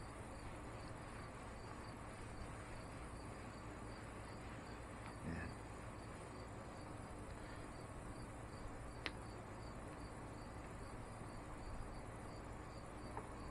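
Insects chirping faintly and steadily: a regular, high, pulsing chirp over a quiet background hiss, with one sharp click about nine seconds in.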